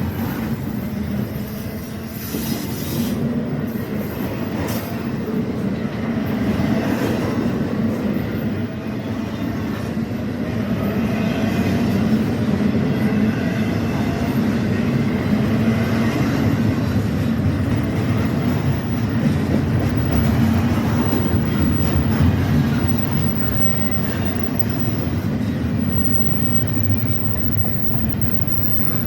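Freight train rolling past at close range, a steady rumble of cars on the rails with clicking over the rail joints and faint wheel squeal.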